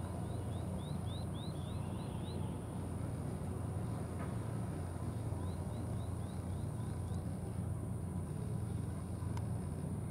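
Outdoor ambience with a steady low rumble, over which a small bird gives a quick run of about eight short rising chirps near the start and again about halfway through.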